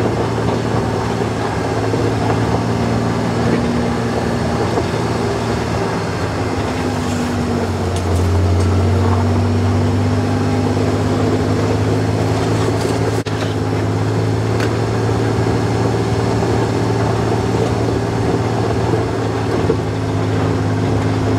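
Kawasaki Mule Pro-FXT side-by-side's three-cylinder engine running steadily at low trail speed, with tyres rolling over gravel, heard from inside the cab. The engine gets a little louder and deeper about eight seconds in.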